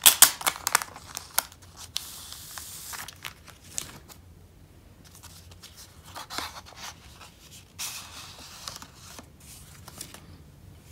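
Crinkling and rustling of a clear plastic sleeve and a paper envelope being handled, the envelope slid out and its flap opened, and a stack of small photo cards pulled out. The sharpest crackles come in the first second or so, followed by softer rustles with quiet gaps.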